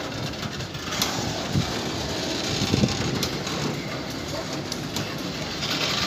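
Freight train of flat wagons loaded with concrete sleepers rolling past on the track: a steady rumble of wheels on rail, with a few sharp clicks and knocks.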